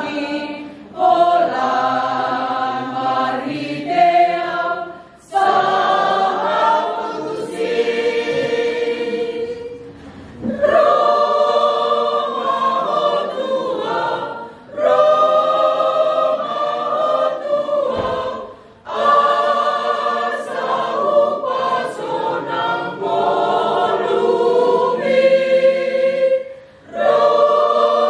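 Mixed choir of men and women singing a hymn in parts, in long phrases broken by short pauses for breath.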